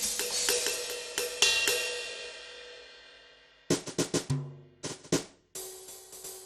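Electronic drum kit played through its sound module: a cymbal crash rings and dies away over about three and a half seconds with a few light hits over it, then a quick run of drum strikes, and another cymbal with more hits near the end.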